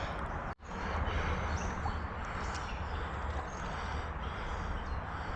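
Steady outdoor background noise with a low rumble, and faint bird chirps high above it. The sound drops out completely for an instant about half a second in.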